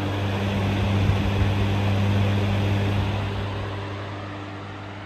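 A 16-inch commercial fan running at full speed as a window exhaust fan: a steady rush of air over a low motor hum. It is loudest in the first couple of seconds and grows gradually quieter through the second half.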